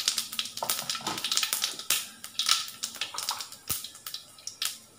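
Mustard, fennel and cumin seeds frying in hot oil in a wok, crackling and popping irregularly, several pops a second: whole spices being tempered in oil.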